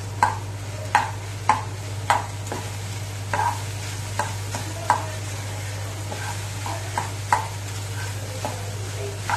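Metal fork stirring and tossing cooked rice with vegetables in a nonstick pan. The fork scrapes and knocks against the pan with irregular sharp clicks, roughly one every half second to second, over a faint steady hiss.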